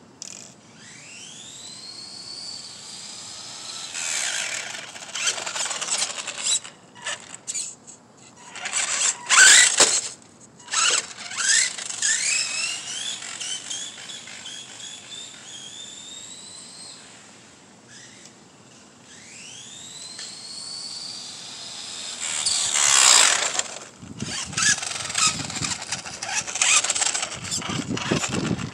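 Radio-controlled cars running on asphalt: motors whining and climbing in pitch as the cars speed up, near the start and again about two-thirds in. Loud harsh squealing and scuffing bursts come in between, strongest about a third of the way in and again about three-quarters in.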